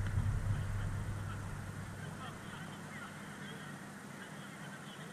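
Faint, distant shouts of footballers calling across an outdoor pitch, with a low rumble fading away over the first couple of seconds and a single sharp knock at the very end.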